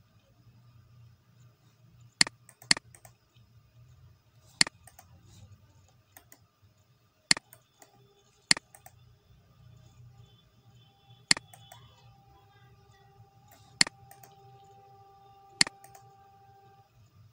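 Computer mouse clicking: eight sharp single clicks at irregular intervals, over a faint low hum.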